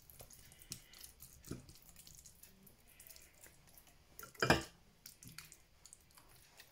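Silicone pastry brush dabbing a wet mustard marinade onto raw chicken skin in a ceramic baking dish: faint wet smacks and small clicks. One sharp knock about four and a half seconds in, as the brush is reloaded in the glass bowl of marinade.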